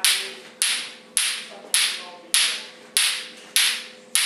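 Clacker toy, two hard plastic balls on a string, knocking together in a steady rhythm: a sharp clack a little under twice a second, each one trailing away before the next.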